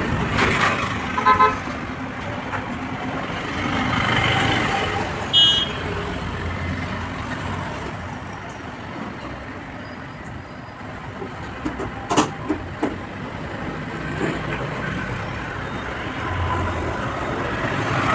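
Steady background street traffic with two short vehicle-horn toots in the first few seconds, and a few sharp clicks about twelve seconds in.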